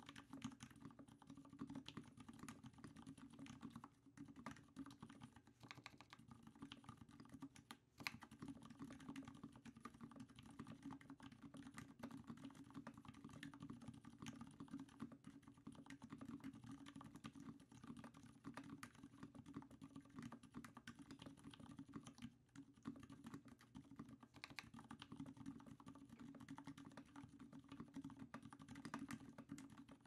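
Typing on a BOK.CP custom mechanical keyboard with a brass plate, lubed Healios linear switches and GMK keycaps: a steady stream of keystrokes with brief pauses about 4, 8 and 22 seconds in, and one sharper stroke just after the pause at 8 seconds.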